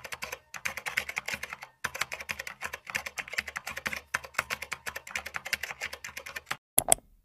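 Fast typing on a computer keyboard, quick runs of key clicks broken by short pauses, ending with two louder, sharper clicks near the end.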